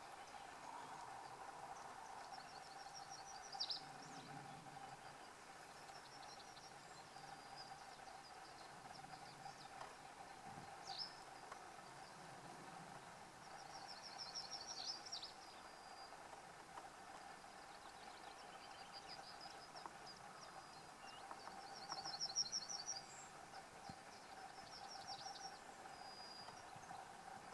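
Faint outdoor ambience: short, high chirping trills come every few seconds, over a faint steady hum.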